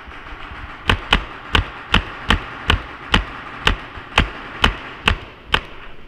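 A paintball marker fired twelve times in a steady string of sharp pops, roughly two shots a second, starting about a second in.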